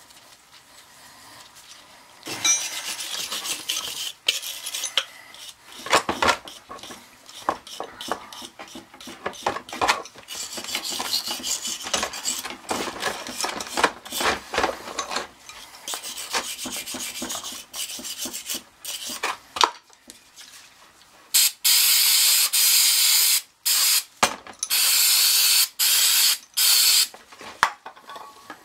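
Scraping and scrubbing of sludge from an oil burner fuel pump and its strainer, in irregular strokes with small metal clicks. Louder steady hissing comes in a few sharp-edged stretches of a second or two each near the end.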